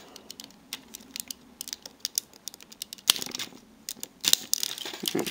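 Scattered light clicks and rattles of hard plastic as a limb of a Transformers Combiner Wars Defensor figure is worked onto the Hotspot torso, its small peg being pressed into the socket. The clicks grow louder and closer together about three seconds in and again past four seconds.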